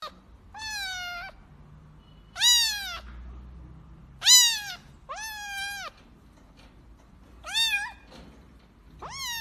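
Grey long-haired kitten meowing six times, high-pitched, each meow rising then falling in pitch, at uneven intervals.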